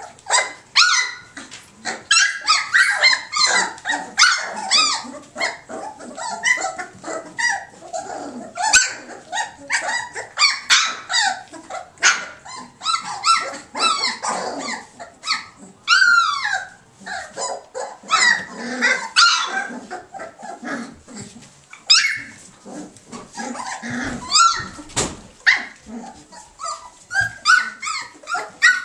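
A litter of standard poodle puppies yipping and barking, many short high-pitched calls overlapping with hardly a break.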